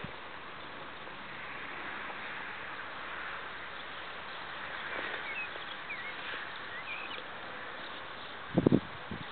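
Steady outdoor background hiss with a few short bird chirps around the middle, and one brief loud low bump near the end.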